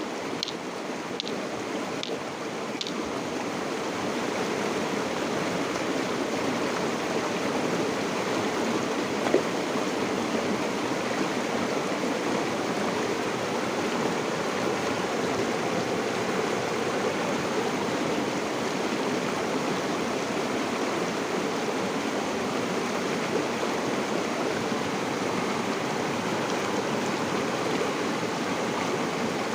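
River water flowing in a steady rushing stream, with a few short high ticks in the first three seconds.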